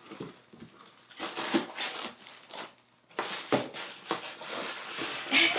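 Cardboard gift box being handled and opened by hand: scattered rustles and scrapes of cardboard and paper, denser in the second half.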